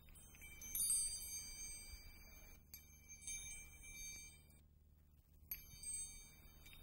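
Metal-tube wind chime tinkling in three bursts, its tubes ringing on for a second or two after each, over a faint low steady hum.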